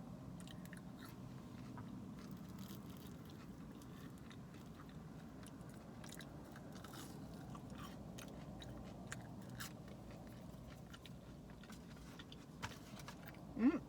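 A person chewing and biting waffle fries close to the microphone, faint wet mouth clicks over a steady low hum. Near the end comes a short rising "mm" of approval.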